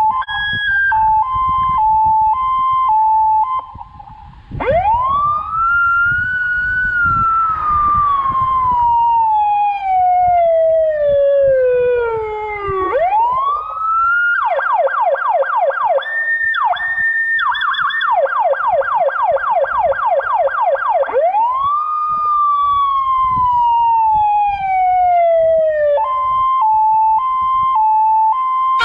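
Fire engine's ZURA PS100R/T4 electronic siren cycling through its tones. It opens with an alternating two-note hi-lo tone. About four seconds in comes a long wail that rises quickly and falls slowly, then a fast yelp of about four sweeps a second, another rise and fall, and the two-note tone again near the end.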